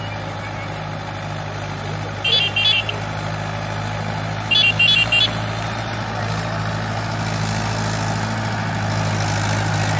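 Mahindra 575 DI tractor's four-cylinder diesel engine working steadily under load while pulling a heavily loaded sugarcane trolley, growing louder in the second half. Short high-pitched beeps cut through twice, two beeps then three.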